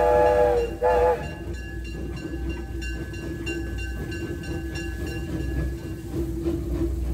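Steam locomotive whistle sounding twice, a longer blast and then a short one. After that the small 2-foot-gauge steam locomotive runs along with a steady rhythmic beat, a thin steady whine and a low rumble.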